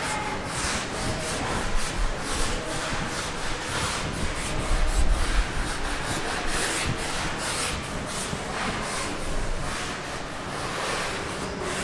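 Blackboard duster wiping chalk off a blackboard in quick, repeated rubbing strokes, with a dull bump about five seconds in.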